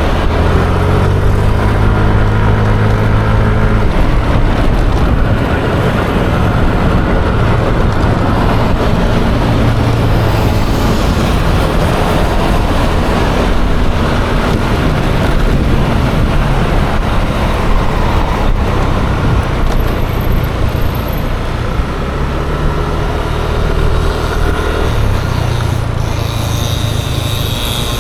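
Riding noise on a Yamaha Aerox 155 scooter: the single-cylinder engine runs while rushing road and wind noise go on throughout. The engine note stands out more in the first few seconds and again near the end, shifting in pitch with speed, over surrounding traffic.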